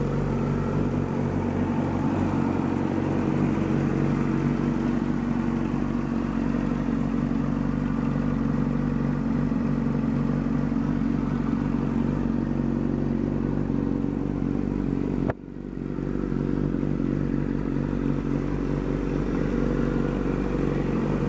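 2007 Suzuki GSX-R 600 inline four-cylinder engine idling steadily on an engine test. The sound briefly cuts out about fifteen seconds in and picks up again at the same idle.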